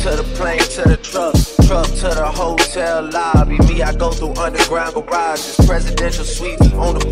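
Hip-hop background music: a rapped vocal over a beat with deep bass hits that slide down in pitch.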